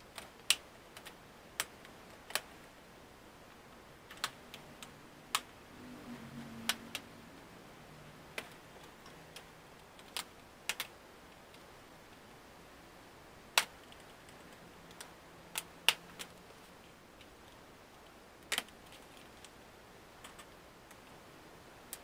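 Sharp plastic clicks and snaps at irregular intervals, about twenty in all: the snap-in clips of an HP Chromebook 11 G5's keyboard and palmrest deck letting go as a pry tool works around its edge.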